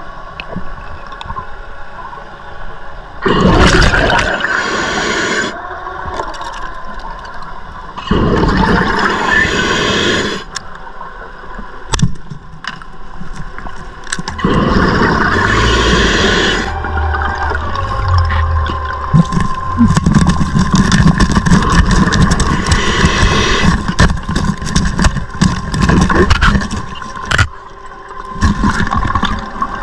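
Scuba diver breathing through a regulator underwater: bursts of exhaled bubbles about every five seconds, then a longer run of bubble noise through the last third, over a quieter hiss.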